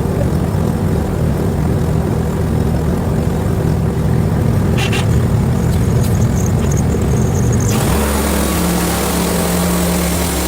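Small gasoline engine running steadily. About eight seconds in the sound changes abruptly: the engine note shifts and a loud hiss comes in over it.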